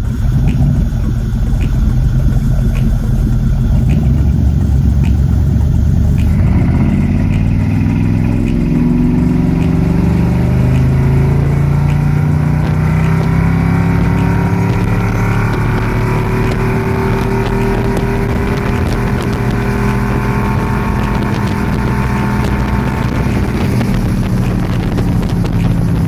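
Volvo Penta 7.4 GSi big-block V8 sterndrive in a Larson 226 LXi speedboat on a test run after the engine swap. It rumbles at low speed, then rises in pitch as the throttle opens about six seconds in, and settles into a steady drone at high speed.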